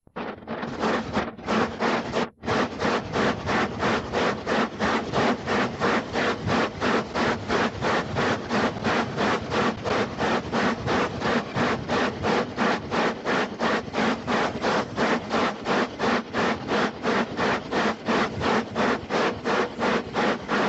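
Steam locomotive chuffing at a steady rhythm, about four exhaust beats a second, briefly breaking off a couple of seconds in.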